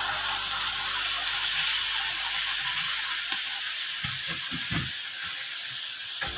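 Steady sizzle of straw mushrooms and chopped vegetables frying in sauce in a hot steel wok, with a metal ladle stirring and knocking against the wok a few times near the end.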